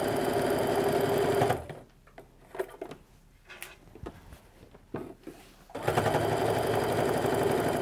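Home sewing machine stitching a seam along a quilt row, running steadily for about a second and a half, stopping for about four seconds while the fabric is handled with small clicks and rustles, then stitching again.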